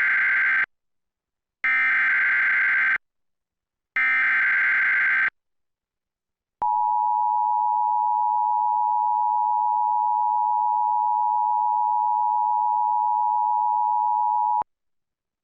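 Emergency Alert System broadcast tones. Three short bursts of digital SAME header data, each a little over a second, with the first already under way. After a second's pause comes the two-tone attention signal, a steady pair of close pitches held for about eight seconds that cuts off sharply, announcing a National Weather Service severe thunderstorm warning.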